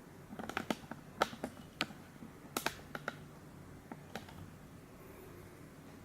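Light, sharp fingertip taps and clicks on a car stereo head unit's touchscreen, about a dozen at an irregular pace, stopping after about four seconds.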